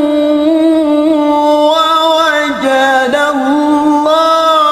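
A male qari chanting the Qur'an in melodic tilawah style, holding long, ornamented notes. The pitch dips briefly twice near the middle.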